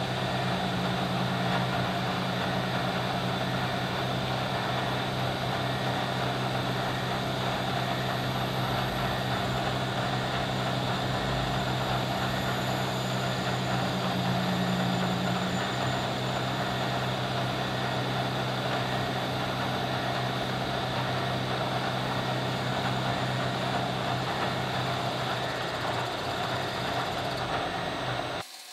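Milling machine running with its end mill cutting around a small metal part held in a chuck: a steady motor hum under a dense cutting hiss, which cuts off suddenly near the end.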